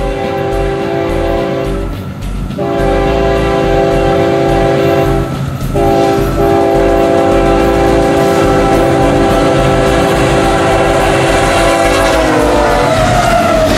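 Air horn of an approaching Kansas City Southern de México freight locomotive, a chord of steady tones sounded in blasts: two long, a short, then one long blast held until the locomotive passes, its pitch dropping as it goes by, the pattern of a horn signal for a grade crossing. The rumble of the passing locomotives rises near the end.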